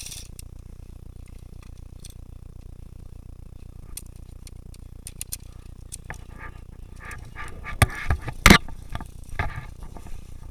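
Scattered sharp clicks and knocks over a low steady background, bunching together and loudest about eight and a half seconds in.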